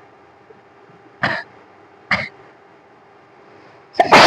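A person sneezing on purpose: two short bursts about a second apart, then a louder sneeze near the end. The sneezes are forced by tickling the nose.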